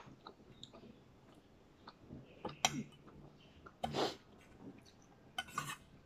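Close mouth sounds of a person chewing a mouthful of rice with lips closed: soft wet clicks and smacks. There is a louder sharp click a little before the middle, a short noisy burst about four seconds in, and another near the end.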